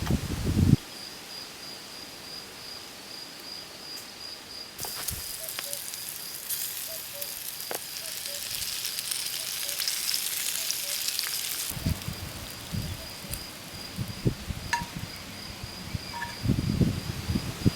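Food sizzling in a hot pan for about seven seconds, starting about five seconds in, then a run of low knocks and bumps from handling.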